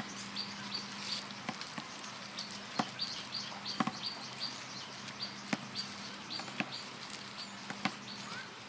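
A small bird chirping in short, high, repeated notes, about two a second, with a few scattered light knocks and a faint steady hum underneath.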